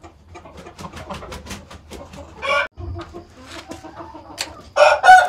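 Gamefowl roosters: a run of short, quick clucks, a louder single call about two and a half seconds in, then a rooster beginning a loud crow near the end.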